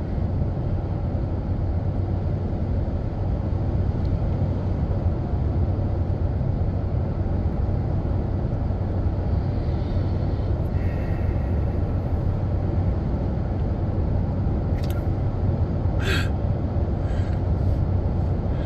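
Pickup truck cruising at highway speed, heard from inside the cab: a steady low engine drone with tyre and road noise. Two short clicks near the end.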